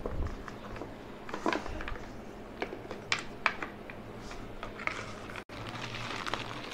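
Scattered light plastic clicks and knocks as a D-shaped side handle is handled and fitted onto a rotary polisher. Near the end there is a soft rustle of a small plastic parts bag.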